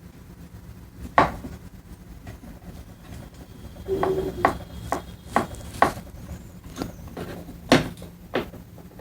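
Scattered knocks and clunks of wooden and metal parts being handled on a table saw bench, about seven separate knocks with gaps between them.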